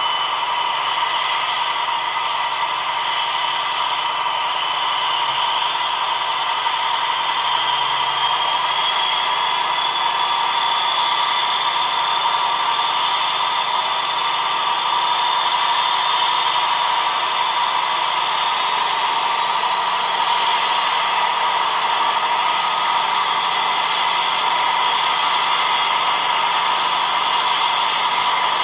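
Sampled sound of a DB class 218 diesel locomotive's MTU 12V 956 TB 11 engine running under power, played through the small built-in loudspeaker of an H0 model locomotive at 8-bit quality. A steady tinny drone with a slight rise in pitch about a third of the way in.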